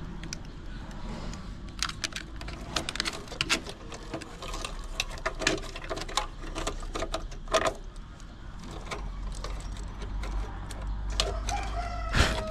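Irregular clicks and snips from a small hand cutting tool and drop cables being worked at a fibre cable cabinet's cable entry. Near the end there is one sharp loud click, and a tone that slowly falls in pitch sets in.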